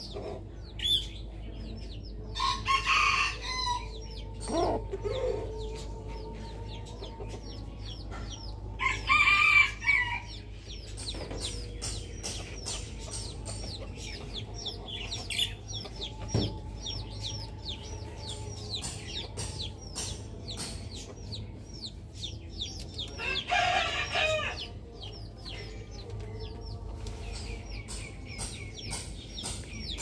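A rooster crowing three times, each call about a second long, coming about two seconds in, around nine seconds in and near twenty-four seconds in. Between the crows, small birds keep up fast, high, repeated chirping.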